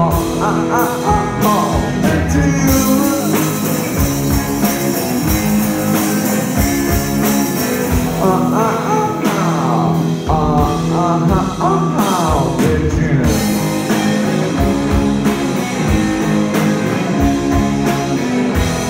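Live rock band playing loudly: electric guitars over a drum kit with steady drum hits and cymbals, with sliding notes about halfway through.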